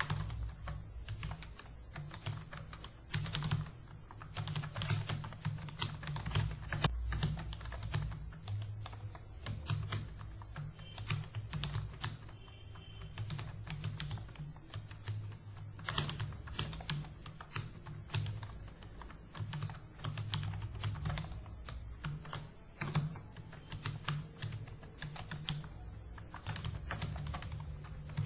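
Computer keyboard being typed on continuously, a rapid, uneven run of key clicks as a paragraph is typed out.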